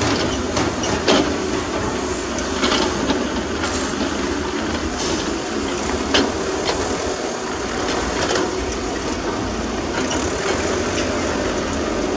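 Heavy earthmoving machinery running steadily, with scattered short metallic clanks and knocks.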